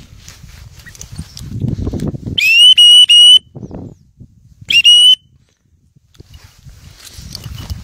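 Handler's dog whistle blown loudly in two groups: three quick pips, then, a second and a half later, two more, each a steady high tone that swoops up slightly as it starts. A low rumble of wind or movement on the microphone lies between the blasts.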